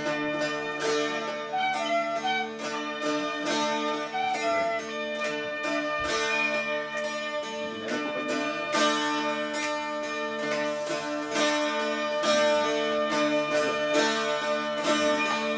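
Several Irish bouzoukis playing together, strummed in a steady rhythm over ringing open-string drones, with a picked melody moving above them; no whistle is heard.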